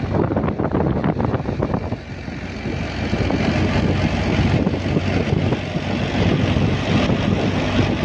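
Shaft-driven wheat thresher running as wheat is fed in: a loud, steady mechanical drone with a low hum under dense noise. The loudness dips briefly about two seconds in, then holds steady.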